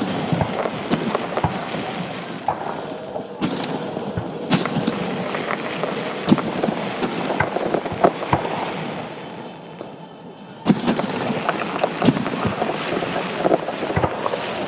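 Fireworks display going off: a dense run of bangs and crackles, with fresh loud volleys starting about three seconds in, again a second later, and near the end after a brief lull.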